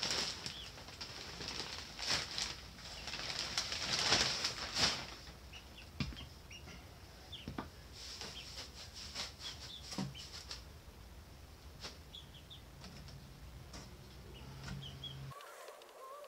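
Pine wood shavings pouring out of a plastic bag into a cardboard box and being spread by hand: rustling and crinkling, loudest in the first five seconds, then softer scattered rustles and clicks. Baby chicks peep briefly a few times.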